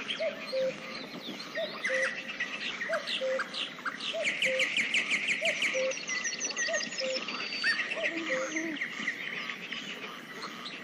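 Several birds singing and chirping, with quick high trills and a low two-note call repeated about once a second throughout.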